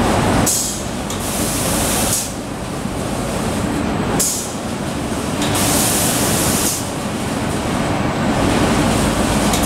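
YUZKOR SBPL 200 automatic section painting line running with a steady low drone and hum, while its paint spray guns hiss in bursts of a second or more, once about half a second in and again about five and a half seconds in.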